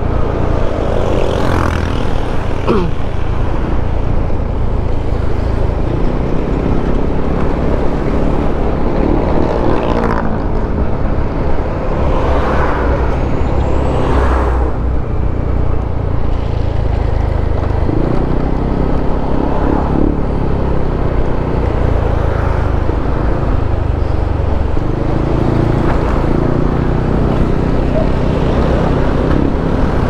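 Motorcycle riding sound at road speed: the engine running under steady, loud wind and road noise, its note shifting now and then.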